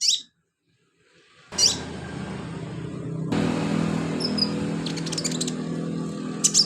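Sunbird giving sharp, high, downward-slurred chirps, then a quick run of rapid chirps near the end. A steady low hum sits underneath from about a second and a half in.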